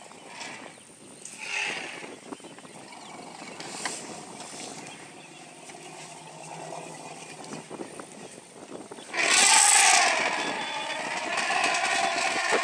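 African elephant trumpeting: a sudden loud, brassy call about nine seconds in, followed by a second, longer call.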